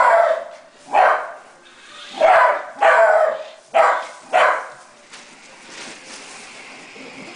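Beagle puppy barking at a remote-control toy car: about six sharp barks in the first five seconds, unevenly spaced, then it stops.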